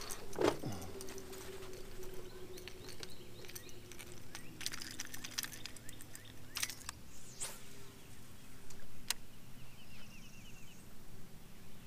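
Open-water ambience from a boat deck: a steady low hum with scattered sharp clicks and knocks from handling the fish and tackle. A bird chirps several times near the end.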